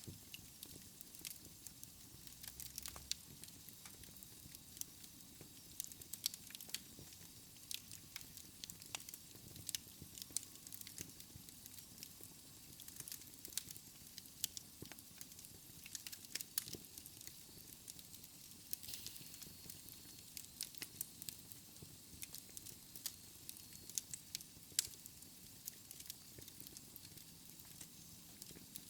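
Wood fire crackling in a fireplace: frequent, irregular sharp pops and snaps over a soft steady hiss.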